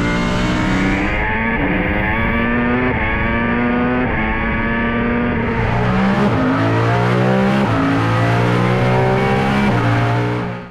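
Racing car engine accelerating hard through the gears: the pitch climbs and drops back at each upshift, about eight times in a row, before the sound fades out at the very end.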